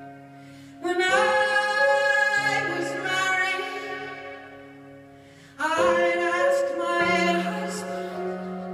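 A woman singing a slow ballad live, with electric keyboard accompaniment: two long sung phrases, one starting about a second in and one just before six seconds, over sustained keyboard chords.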